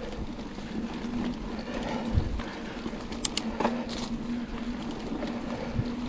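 Santa Cruz Hightower LT mountain bike rolling down a dirt singletrack: steady tyre and trail noise with a steady buzz that sets in about a second in, and a few knocks and clicks from the bike over bumps.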